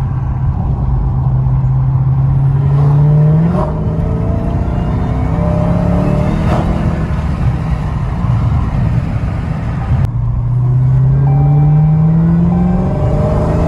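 Dodge Challenger SRT Hellcat Widebody's supercharged 6.2-litre HEMI V8 running loud through its stock exhaust under throttle. The engine note climbs steadily for about three and a half seconds and then drops, and climbs again for a couple of seconds from about ten seconds in.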